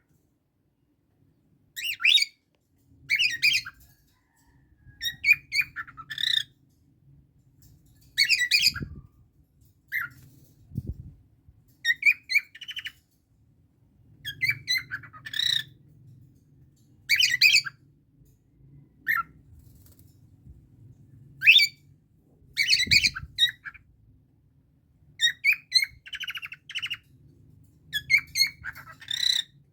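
Pet parrots squawking and chirping in short, sharp bursts, a cluster of calls every second or two.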